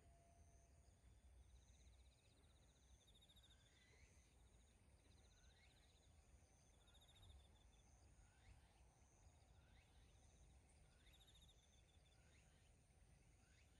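Near silence outdoors, with faint insect trills repeating every few seconds, a thin steady high insect-like tone, and short chirps about once a second or so.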